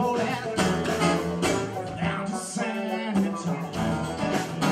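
A band playing live: a man singing with acoustic guitar strumming and drums keeping a steady beat.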